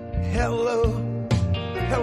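Blues-rock band recording in an instrumental break: a lead electric guitar plays a sustained, wavering melody with vibrato over bass and drums.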